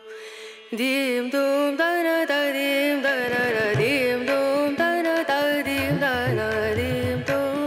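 Background music: a melody of sliding, ornamented notes, with drum beats coming in about three seconds in.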